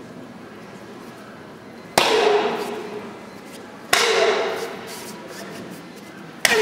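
Three sharp cracks about two seconds apart as a karate kick and strikes break boards held by assistants, each crack followed by a shout that dies away over about a second in the large hall.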